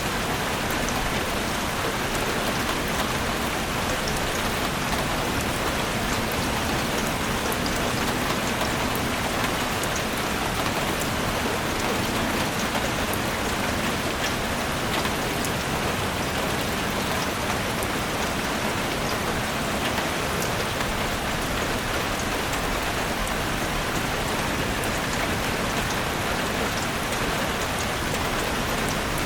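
Steady rain falling in a forest: an even, unbroken hiss with scattered drop ticks.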